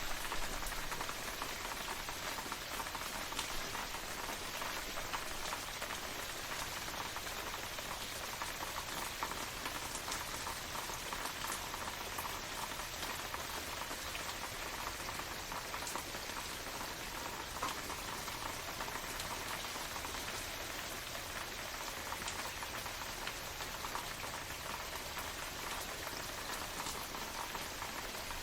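Steady rain falling, a dense hiss with scattered individual drops ticking on a surface.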